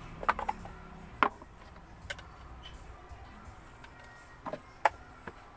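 Plastic parts of a humidifier being handled, giving a few sharp clicks and knocks: a cluster early on, one louder knock about a second in, and two more near the end.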